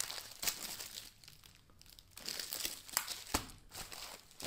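Clear plastic packaging sleeves of stacked phone cases crinkling and rustling as hands shuffle through the pile, with a few sharper clicks in among the rustle.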